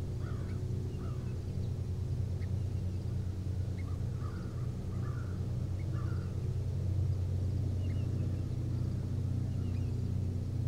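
A steady low engine hum, like a motor running at idle, with several short bird calls scattered over it.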